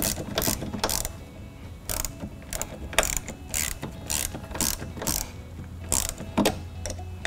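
Ratchet wrench clicking in short, irregular runs while a Torx bolt on a Jeep Gladiator door hinge is turned out.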